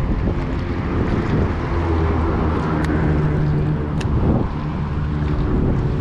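A steady engine drone with wind noise on the microphone, and a few faint clicks.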